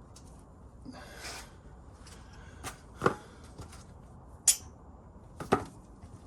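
Hand tools handled against metal: a brief rustle, then four sharp clinks and knocks, one ringing briefly, over a low steady background hum.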